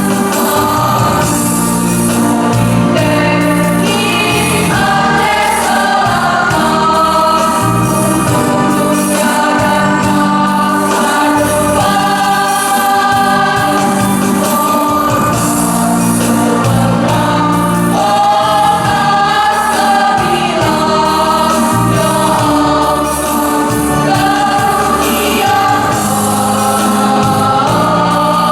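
A choir singing, several voice parts holding notes together and moving from chord to chord.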